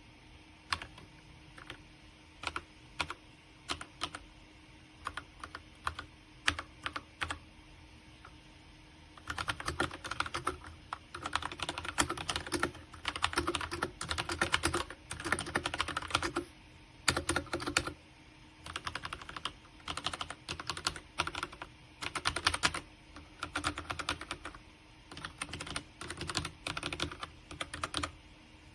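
Typing on a MageGee 75% mechanical keyboard with linear red switches: single keystrokes a second or so apart at first, then fast runs of typing from about nine seconds in.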